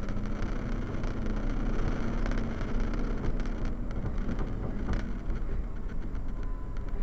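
Rock truck's diesel engine running steadily while the truck drives over a rough dirt haul road, heard from inside the cab, with scattered knocks and rattles.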